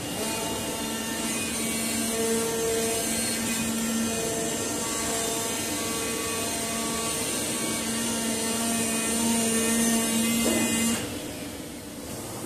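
AccTek oscillating knife CNC cutter cutting PU leather: a steady buzz from the vibrating knife head over a hiss, the tone dropping out briefly a few times, and the whole sound falling away about eleven seconds in.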